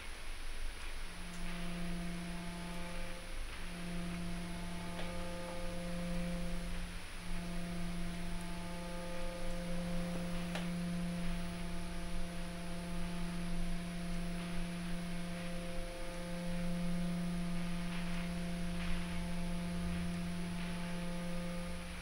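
A low, steady droning hum on one held pitch. It starts about a second in and drops out briefly a few times.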